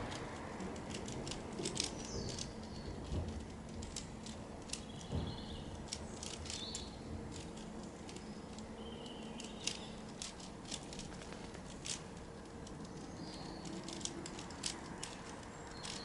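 Regular 3x3 Rubik's cube being turned by hand: a run of short, irregular plastic clicks as the layers are twisted. A few birds chirp briefly in the background.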